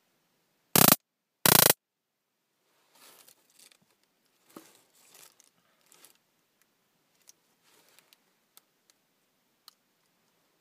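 1101 'Police' flashlight stun gun discharging across its electrodes in two short, loud crackling bursts about a second in, under a second apart. Then faint handling rustles and a few small clicks as the device is turned over in the hand.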